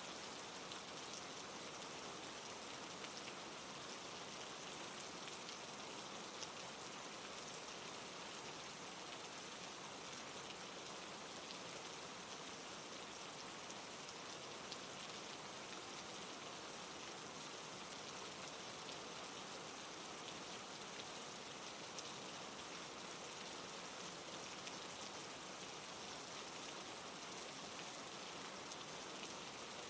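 Steady rain falling on a surface: an even hiss with faint scattered drop ticks, the rain ambience of a sleep-sound track.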